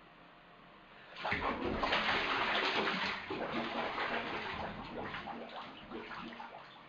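Water splashing and sloshing in a full bathtub as a person kicks and thrashes in it. The splashing starts about a second in, is loudest soon after, and eases off toward the end.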